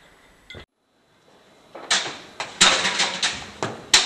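Dead silence for about a second, then from about two seconds in an irregular run of sharp metallic clicks and clinks: a key being worked in a stiff, stuck lock.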